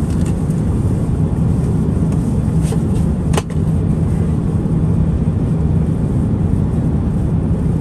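Steady airliner cabin noise: a loud, even rush with a constant low drone underneath. There is one short click about three and a half seconds in.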